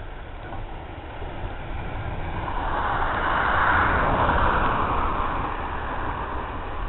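Heritage railway train moving past: a rushing noise over a low rumble that swells to its loudest about halfway through, then fades.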